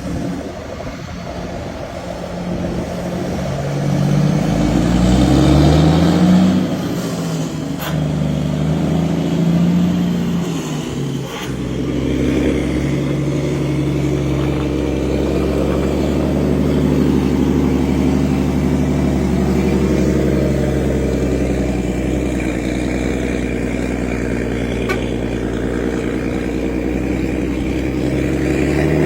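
Volkswagen Meteor truck's diesel engine running through an exhaust fitted with a diffuser. The engine note climbs twice in the first ten seconds as it revs up, holds steady for a long stretch, then rises again near the end.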